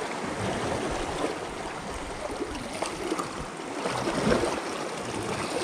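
Steady wash of shallow seawater lapping and trickling along the shore.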